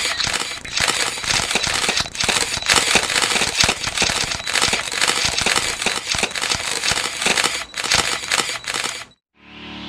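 Many camera shutters clicking in rapid, overlapping bursts, paparazzi-style. They cut off suddenly about nine seconds in, and a swelling music chord begins just before the end.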